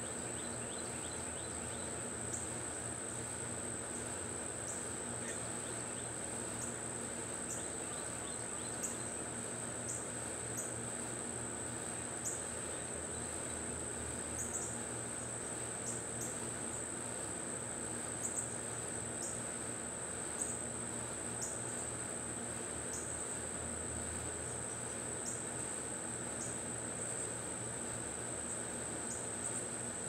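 Steady high-pitched insect chorus, typical of crickets, holding one pitch without a break, with short ticks every second or so and a faint even background noise beneath.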